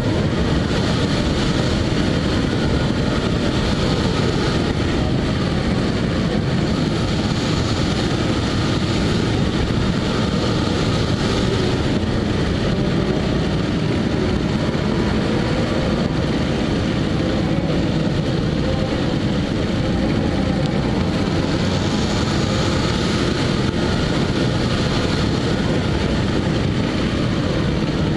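Steady rush of wind and tyre and road noise on a camera taped to the front bumper of a moving Peugeot 206, a dense low rumble with no breaks.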